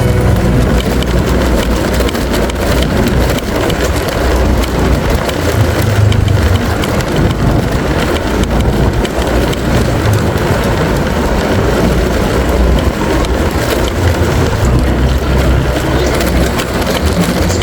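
A motor running steadily under a loud, continuous rushing noise.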